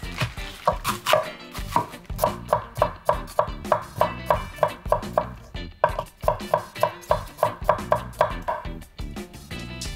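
Kitchen knife chopping on a cutting board in quick, regular strokes, about four a second, with a short break a little before six seconds in.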